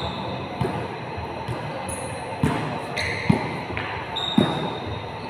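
A basketball bouncing on a hardwood gym floor during play, four uneven thumps echoing in the large hall, the last two the loudest.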